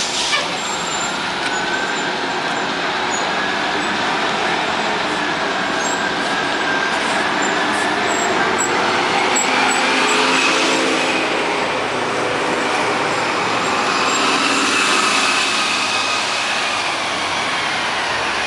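City transit buses pulling through an intersection and driving away, a steady rush of engine and road noise. Over it runs a whine that slowly rises and falls in pitch, the sound of the Orion VII hybrid's BAE Systems HybriDrive electric drive.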